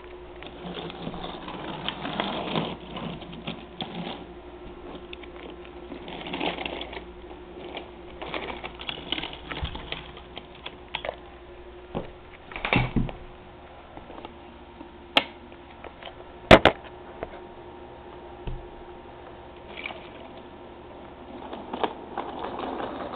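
Toy trains running on the track: a steady electric hum with continual clicking and clattering of the wheels over the rails, and a few louder sharp knocks around the middle.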